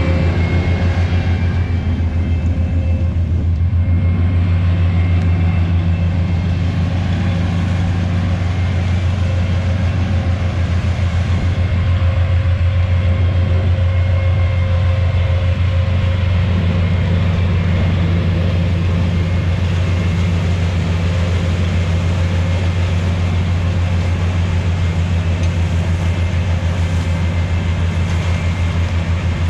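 Oxbo 8430 self-propelled ear corn picker running steadily under load: a constant, even low engine drone with steady tones from the machinery above it.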